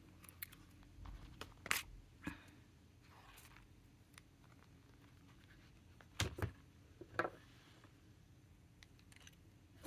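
Paper planner pages being turned and handled: a few short rustles and taps, the loudest a pair about six seconds in.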